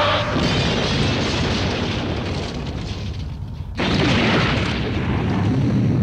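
Explosion sound effects: a long blast that slowly dies down, then a second explosion that starts suddenly a little under four seconds in.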